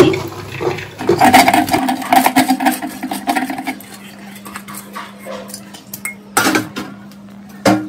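Chopped banana flower being washed by hand in a metal pressure cooker pot: clinking and rattling of the pot, busiest for a few seconds after the start, then quieter, with two sharp knocks near the end.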